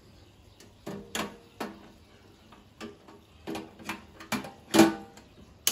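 Butane gas cartridge being handled and fitted into the cartridge compartment of a Campingaz Camp Bistro 2 portable gas stove: a series of metal clicks and knocks, some briefly ringing. The loudest is a clunk near the end, followed by one sharp click.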